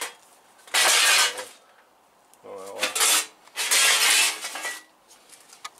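Two bouts of metallic clattering and rustling, each about a second long, as parts are rummaged through in a search for a spare part.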